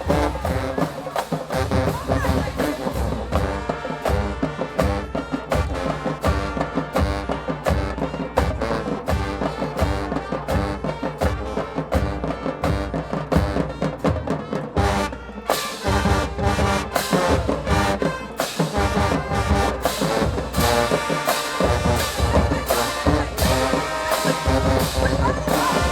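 High school marching band playing a brass-heavy tune over a steady, driving drum beat, with a brief dip about halfway through before the full band comes back in.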